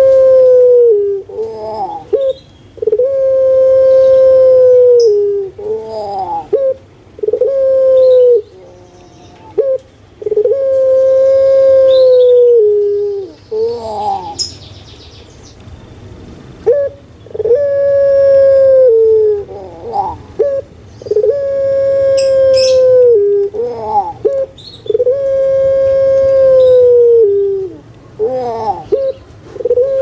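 Puter pelung, a Javanese long-calling barbary dove (Streptopelia risoria), cooing over and over: about seven long, steady notes that each drop at the end, with short rising and falling notes between them, and a pause of a few seconds midway.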